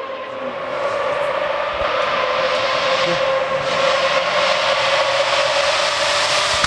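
Lamborghini Murcielago R-SV race car's V12 engine running hard at high revs on one steady, high-pitched note, getting louder over the first couple of seconds as the car comes up the hill.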